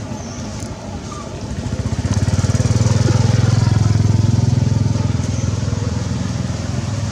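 A motor engine running with a low, fast-pulsing rumble, growing louder about two seconds in and then slowly easing off, as a passing motor vehicle does.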